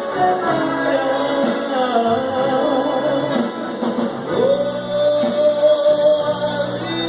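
A live band playing with a singer. About four seconds in, the melody slides up into one long held note.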